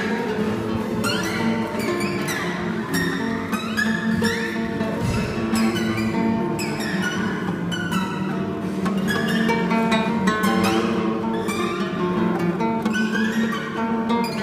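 Several acoustic guitars plucked and played together by a group of guitarists, with a bowed cello among them, heard as a video recording played back through the room's speakers.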